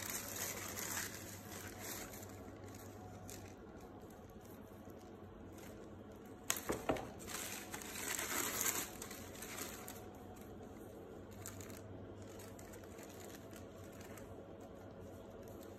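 Tissue paper rustling and crinkling as it is unfolded and pulled back inside a shoebox, faint at first, with the loudest crinkling about halfway through.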